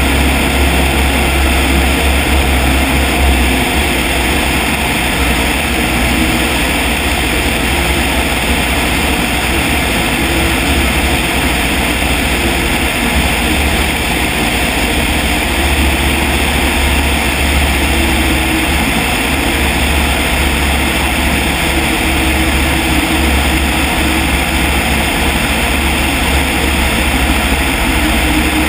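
Piper Cub's engine and propeller running steadily in cruise flight, a constant low drone with a heavy rush of propeller wash and wind over the outside-mounted microphone.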